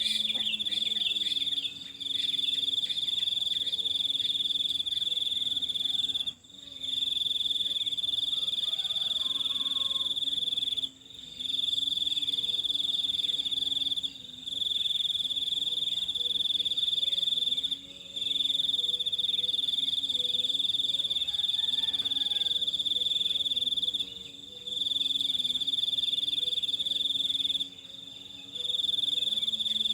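Insect trilling: one steady, high-pitched trill that breaks off for a moment every few seconds, about seven times, with fainter low wavering calls underneath.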